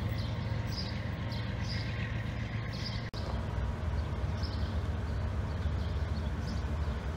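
Low, steady rumble of an approaching CSX diesel freight locomotive still some distance off, with a small bird chirping over it about twice a second. The sound cuts out for an instant about three seconds in.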